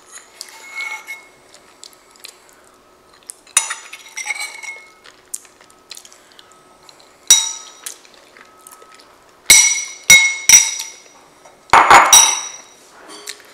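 Metal spoon clinking and scraping against a ceramic bowl while the last of the food is scooped up. A few separate clinks ring briefly in the first half, then a quick run of louder clinks and a scrape comes near the end.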